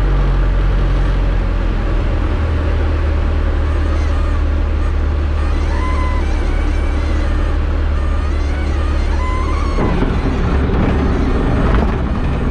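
Diamond DA-20 engine and propeller heard from inside the cockpit during a touch-and-go runway roll, running at low power, then power comes up about ten seconds in for the takeoff roll.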